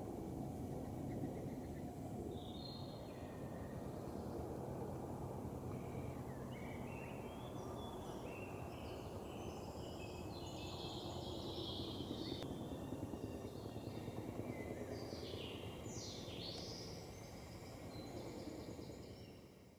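Songbirds chirping and calling over a steady low rumble, which fades out at the end.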